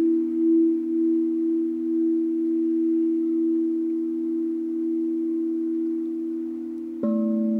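Large polished-aluminium tube wind chimes, tuned to an E minor pentatonic scale, ringing with long sustained deep tones that waver slowly in loudness. About seven seconds in, the leather-wrapped stone striker hits a pipe again and a new chord of tones rings out.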